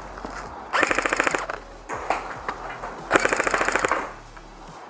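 Airsoft electric gun firing on full auto: two rapid bursts of pellets, a rattle of quick even clicks, the second burst starting about three seconds in.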